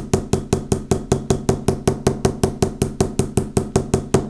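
Small riveting hammer tapping rapidly and evenly on the head of a copper wire rivet, about seven light strikes a second, smoothing a snag out of the rivet head.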